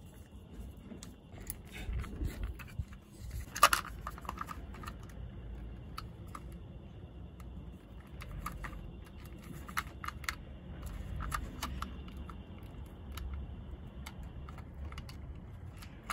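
Small plastic clicks and rattles of a car's trailer socket and its wires being handled while a wire is fitted to its terminal, with one sharper click about four seconds in.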